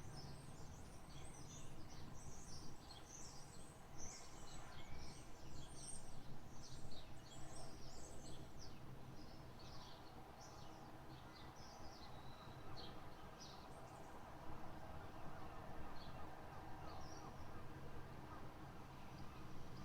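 Small birds chirping and twittering over a steady low background noise, the chirps thinning out after about fourteen seconds.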